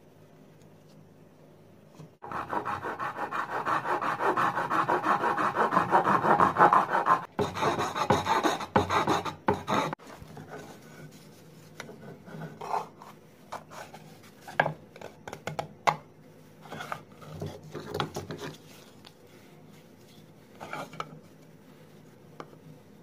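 Wood being rasped or sanded by hand in fast, even strokes for about eight seconds, starting about two seconds in. Afterwards there are scattered light knocks and clicks as the wooden pieces are handled.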